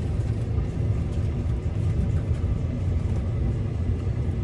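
Steady low rumble of a car.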